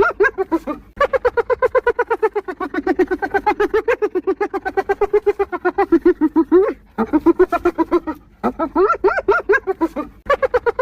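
Spotted hyena giggling: a rapid, high-pitched run of pulsed laughing notes, several a second, in long bouts broken by short pauses.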